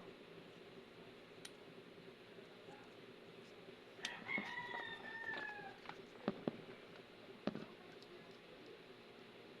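A rooster crows once, about four seconds in, in one call of nearly two seconds. A few sharp clicks follow.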